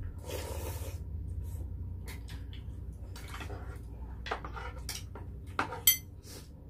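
Mealtime sounds: metal spoons and chopsticks clicking and scraping against black stone pots and plates, with soup being slurped about half a second in. One sharp, ringing clink of metal on a dish about six seconds in is the loudest sound.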